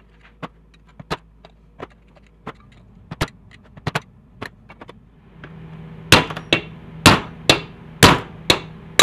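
Hammer blows on a screwdriver and then a drift against a Honda GX160 crankcase, knocking out the crankshaft seal and main bearing. It starts as light, irregular taps, then from about six seconds in comes a run of heavy metal-on-metal strikes, about two a second. The bearing is being pounded out through its inner race, which the mechanic calls the wrong way to remove it.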